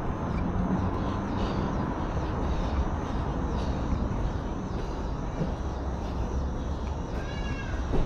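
Steady low rumble of city street ambience and traffic. A short bird call sounds once near the end.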